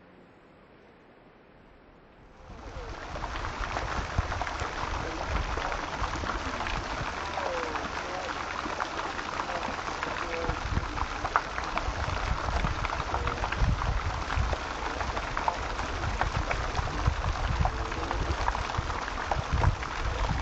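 Near silence for about two seconds, then the water jets of a stone statue fountain splashing steadily into its basin.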